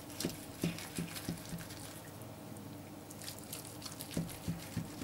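Kitchen knife slicing through a roasted roe deer leg on a wooden cutting board: a run of small moist clicks and light taps, in two spells with a quieter stretch in the middle.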